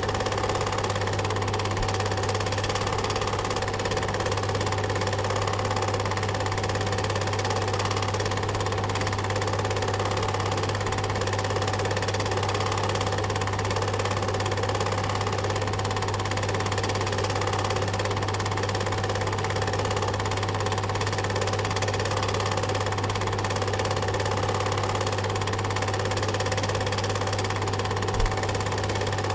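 Cine film projector running steadily, a continuous mechanical sound from its motor and film mechanism over a strong low hum.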